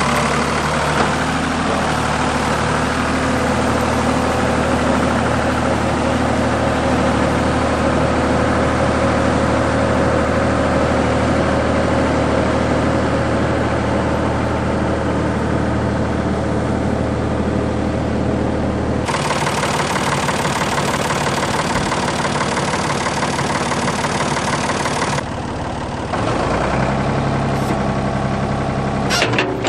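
A machine engine running steadily, without revving up or down. The sound changes abruptly about two-thirds of the way through and again a few seconds later, as if cut.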